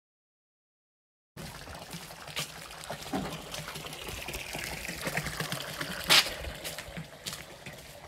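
Silence, then after about a second and a half a thin stream of water from a wall pipe starts splashing steadily into a trough. A sharp knock about six seconds in is the loudest sound, with a few fainter clicks around it.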